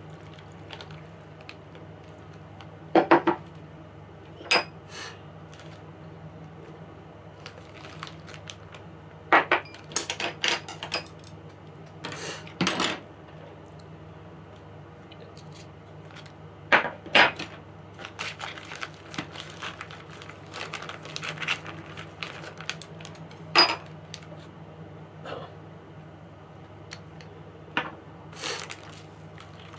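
Scattered clicks and knocks of plastic kitchen containers being handled and set down on a wooden table, with a patch of small crackles in the middle from handling a plastic zip-top bag. A steady low hum runs underneath.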